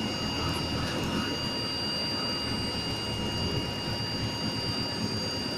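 Bus engine running as the bus moves slowly across a gravel lot: a low, even rumble with a steady high-pitched whine over it, and the whine cuts off sharply near the end.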